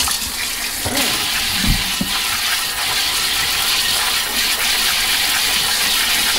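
Water from a kitchen faucet's pull-down sprayer spraying into a bowl of mushrooms and water in a stainless steel sink, a steady hiss that turns brighter about a second in.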